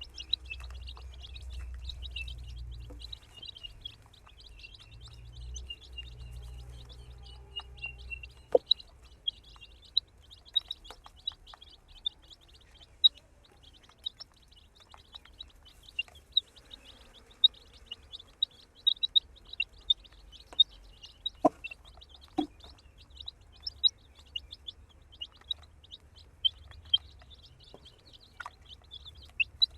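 A group of baby chicks peeping continuously, many short high peeps overlapping. A low rumble runs under the first several seconds, and a few sharp knocks come about a third of the way in and again around two-thirds.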